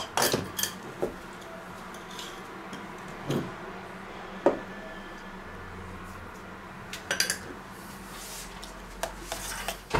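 Scattered clinks and knocks of spoons against stainless-steel mixing bowls and other kitchen utensils, with a quick cluster about seven seconds in, over a faint steady hum.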